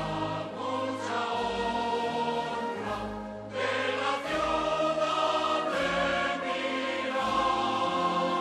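Choral music: a choir singing sustained chords over long held low notes, with the chords changing every second or so.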